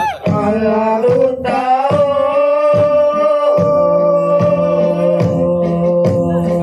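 Adivasi folk music played loud over a loudspeaker: a long held sung melody over a steady drum beat, a little more than one stroke a second.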